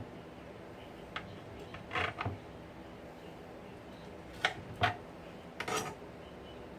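Knife blade clicking against a glass cutting board while slicing raw turkey cutlets, a handful of sharp, irregularly spaced clicks.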